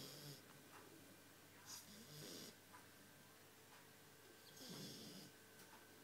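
A nine-week-old Shar Pei puppy snoring faintly, one snoring breath about every two and a half seconds, each a low rattle with a hissy rush of air.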